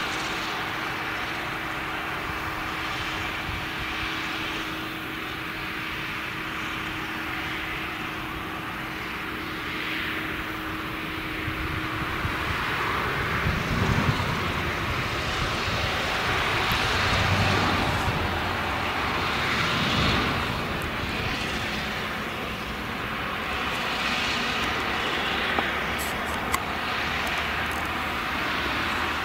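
Claas Jaguar 970 forage harvester's MAN V8 engine running steadily under load while it chops maize. The sound is a continuous drone, which grows louder and deeper from about halfway and swells several times.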